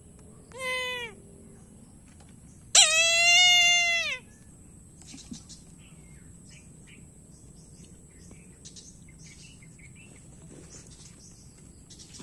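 Two animal calls: a short falling call, then a second, longer and louder call that holds its pitch and drops away at the end. Faint scattered chirps follow.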